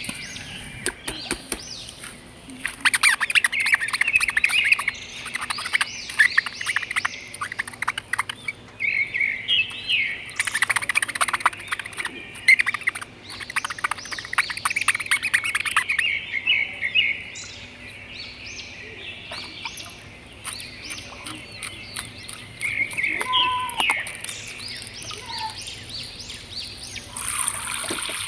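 Small birds chirping and twittering, many short calls overlapping in quick runs. Near the end a steady rushing noise starts.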